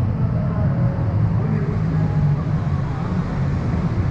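Steady low rumble of outdoor riverside ambience beneath a road bridge, with faint voices in the background.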